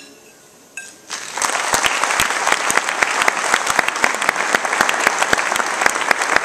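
Audience applauding at the end of a song, starting about a second in and quickly building to steady, loud clapping, after a last note fades out.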